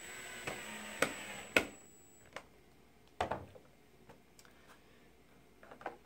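Cordless drill/driver with a T10 security bit runs for about two seconds, a thin high whine, driving a screw into the case. Two sharp clicks sound about a second in. A single knock follows around three seconds, then a few faint plastic clicks.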